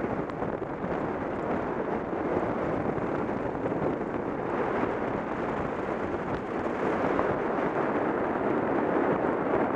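Steady rushing noise of a car moving at speed along a road: wind and road noise with no engine note standing out.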